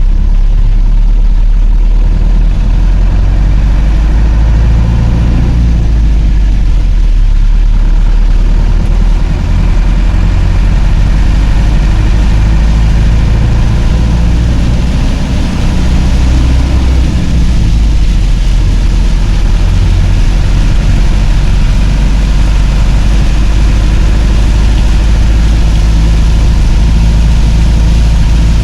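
Vehicle engine running steadily at cruising speed on a wet highway, with a constant hiss of tyres and rain over the low engine note.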